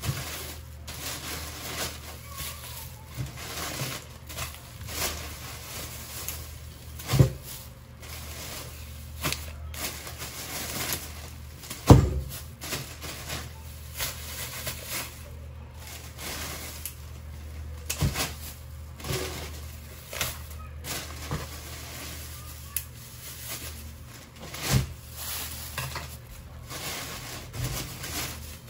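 Plastic grocery bags and plastic-wrapped packs of meat being handled and rustled, with scattered knocks as items are moved and set down; a few sharper thumps stand out, about 7, 12, 18 and 25 seconds in. A steady low hum runs underneath.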